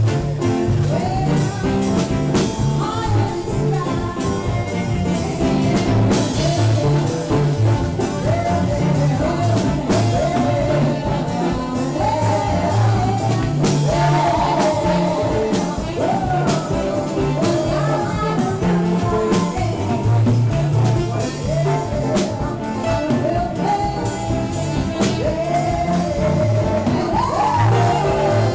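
Live band playing, with a saxophone and a singer over bass guitar, keyboards and drums.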